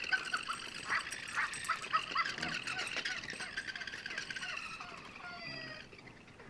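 Battery-operated plush toy giving out a run of quick, high electronic chirping and warbling calls, ending in a few gliding notes and stopping about six seconds in.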